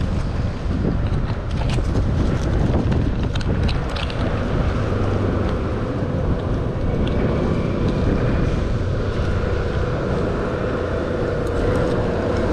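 Steady low rumble of road traffic and wind on the microphone; a vehicle's engine note comes in during the second half.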